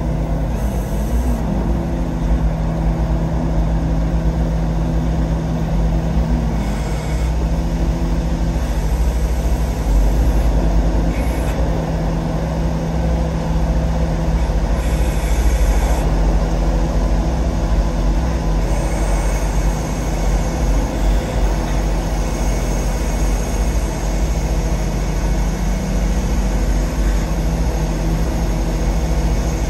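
Concrete pump truck running while pumping concrete through its boom: a steady, loud diesel engine drone with a constant hum, and short hissing surges every few seconds.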